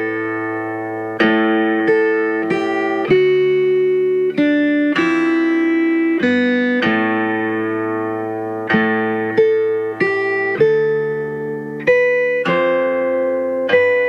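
Background instrumental music on a plucked string instrument: slow chords and melody notes, each struck and left to ring out.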